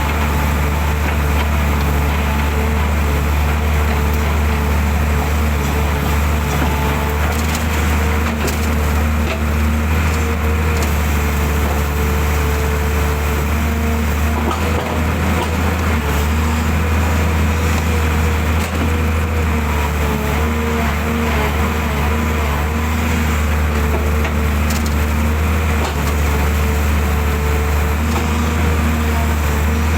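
Excavator's diesel engine running steadily with a low drone, with a few brief cracks and knocks from about eight to eleven seconds in.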